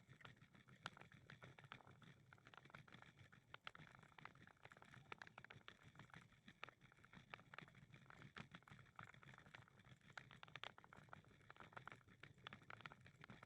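Faint footsteps and small irregular clicks of walking, over a low steady hum.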